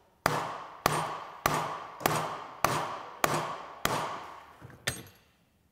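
A hammer tapping the two-stroke moped's crankcase half into place over the crankshaft: seven even blows, a little under two a second, each ringing briefly, then one lighter tap near the end.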